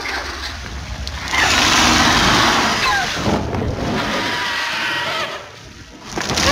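Film sound design of dragons in flight: a loud rushing, rumbling roar with a few short shrieks gliding up and down. It drops away briefly near the end, then comes back loud.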